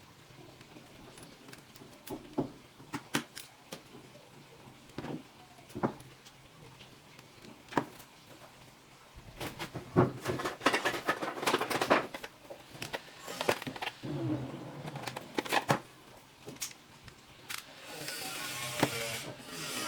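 Handling noises from laptop repair work: scattered clicks and taps, growing busier with rubbing and clicking about halfway, and a steady hiss near the end.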